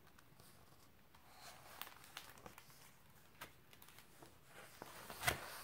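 Faint rustling and soft clicks of a hardcover picture book being handled, with a louder rustle near the end as a page is turned.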